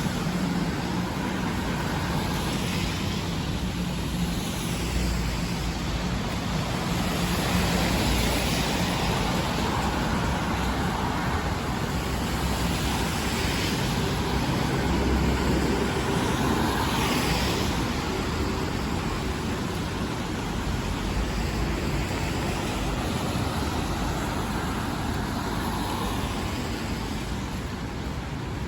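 Steady rain on a city street with cars passing on the wet road, their tyre hiss swelling and fading several times.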